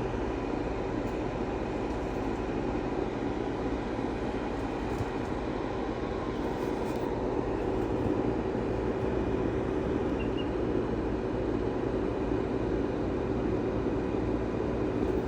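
A steady mechanical hum with a few faint, unchanging tones running through it.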